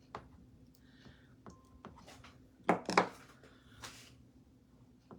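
Light clicks and brief scrapes of craft tools being handled, with two louder sharp knocks close together about three seconds in.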